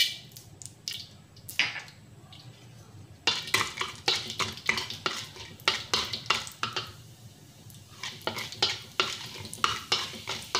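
Wooden spatula stirring and scraping urad dal around a wok in hot oil, with a light sizzle of frying. After a few scattered taps, the stirring starts about three seconds in as a quick, continuous run of scrapes and knocks against the pan.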